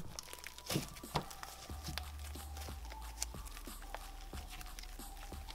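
Creamy, fluffy slime being squeezed, folded and stretched by hand, giving off irregular small clicks and crackles.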